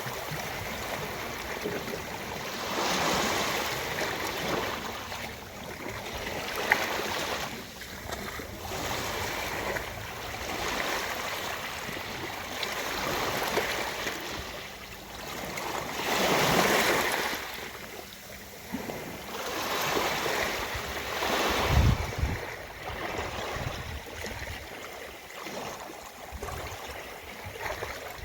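Ocean waves washing onto a beach, the surf swelling and falling away every few seconds. There is a sharp click about a quarter of the way in and a low thud later on.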